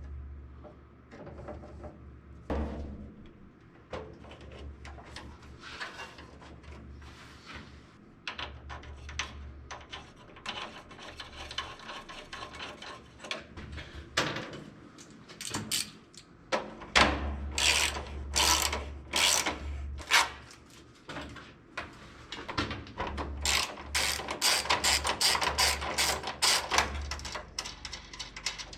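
Mechanical clicking and rattling from hand tools working on electrical panel hardware, in several spells of quick clicks, the busiest ones near the middle and toward the end.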